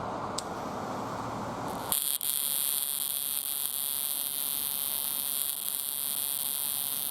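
High-voltage ignition spark arcing repeatedly inside a Chevy distributor cap, a steady high electrical buzz that starts abruptly about two seconds in after a low rushing noise. The arcing jumps from one terminal to the next over a burn spot in the cap, the cause of the engine's misfire.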